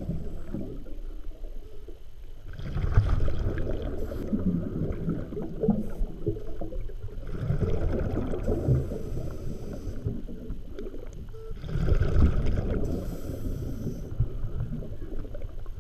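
Scuba diver breathing underwater through a regulator: three rushes of exhaled bubbles, about four to five seconds apart, with a fainter hiss between them.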